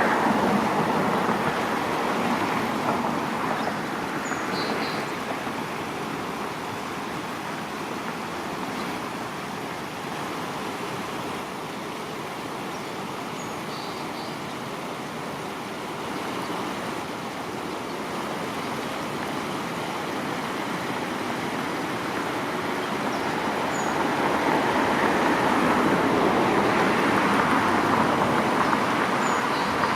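Steady rush of road traffic that swells, eases off in the middle and swells again near the end, with a few faint short high bird chirps.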